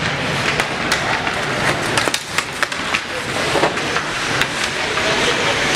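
Ice hockey play in a rink: skate blades scraping the ice and many sharp, irregular clacks of sticks on the puck, over a steady rink din.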